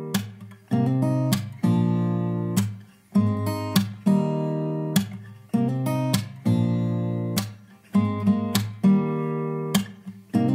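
Background music: acoustic guitar strumming chords. Each strum rings on and fades before the next.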